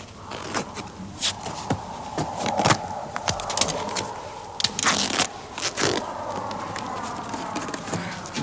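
Irregular clicks, scrapes and rustles, a few sharp ones louder, over a faint steady hum.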